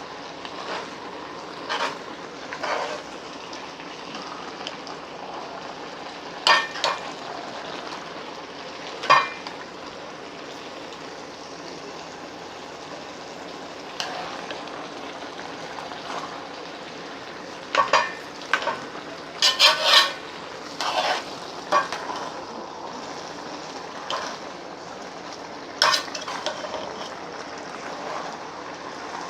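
Food frying with a steady sizzle, with scattered clinks and clatters of a utensil against a pot or pan, several in quick succession a little past the middle.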